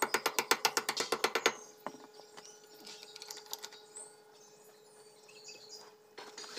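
Hammer striking a steel chain sprocket on a motor grader's tandem drive: a fast run of sharp metallic taps, about ten a second, for the first second and a half. Then a few light metal clicks as the sprocket is handled, over a faint steady hum.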